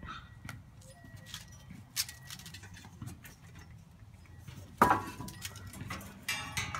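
Light clicks and clinks of small objects being knocked about, with a sharp knock about two seconds in and a loud clatter with a brief ring nearly five seconds in, then a quick run of clicks near the end.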